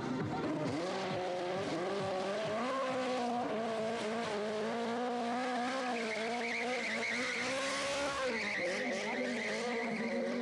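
Sport motorcycle doing a burnout: the engine held at high revs while the rear tyre spins and squeals on the asphalt. The revs drop briefly about eight seconds in, then climb again.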